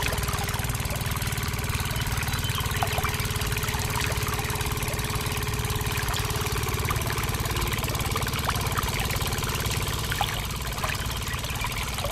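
Small motor on a miniature model tractor running steadily with a fast, even putter, driving a little water pump, with a thin stream of water trickling into a tank.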